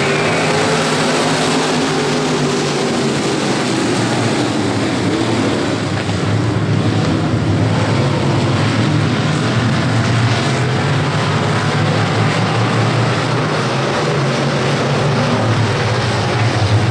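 A field of dirt-track stock cars running together at racing speed: a loud, steady drone of many engines. Their pitch rises over the first few seconds as the pack accelerates.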